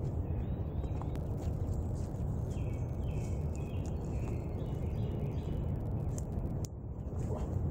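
Steady low wind rumble on the microphone, with a bird giving a run of short chirps midway and scattered light rustling and snapping as someone walks through undergrowth.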